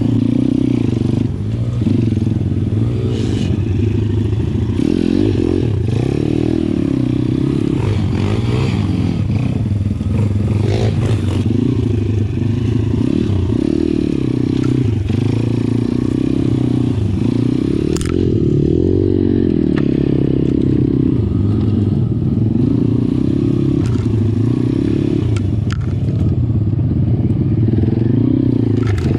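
Pitgang 140XD pitbike engine being ridden off-road, its pitch repeatedly rising and falling as the throttle is opened and closed, with occasional knocks and rattles from the bike.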